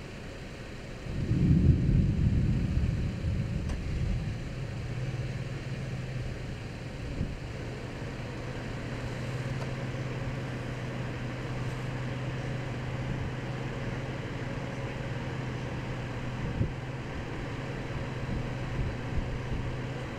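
A low rumble swells about a second in and dies away over a few seconds. After it, a vehicle engine idles with a steady low hum.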